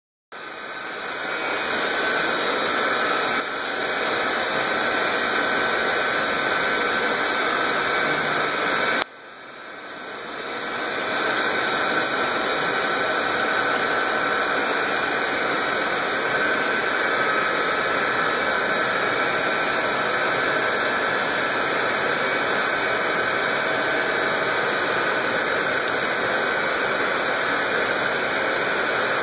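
Steady rushing hiss from the goldfish holding pond's water and aeration. It drops out briefly about nine seconds in and swells back up over a couple of seconds.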